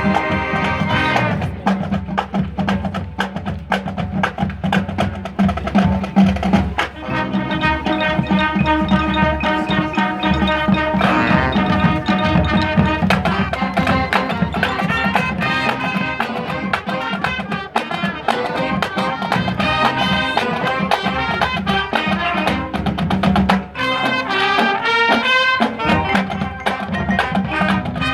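High school marching band playing its field show: brass sections over a drumline, with many sharp drum strokes.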